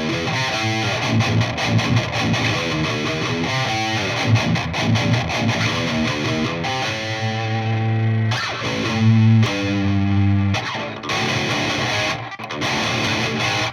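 Heavily distorted seven-string electric guitar through a high-gain amp, with a Fortin 33 boost pedal turned all the way up to cut the low end and tighten it: chugging low-string riffs with a few held chords, each phrase stopping dead.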